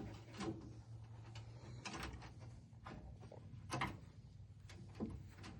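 Faint, scattered clicks and knocks from handling the tailgate as its back panel is refitted, with one louder knock about four seconds in, over a low steady hum.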